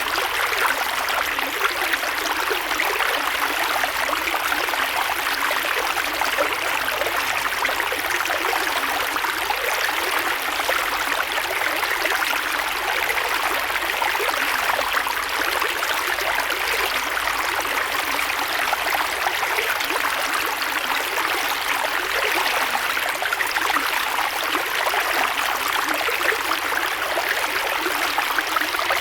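Creek water flowing and burbling over stones, a steady rushing that stays even throughout.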